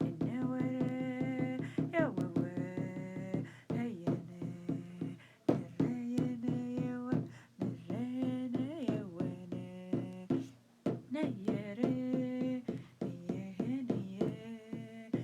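Wordless chanting: held, sung notes that slide from one pitch to the next, over a steady hand-drum beat.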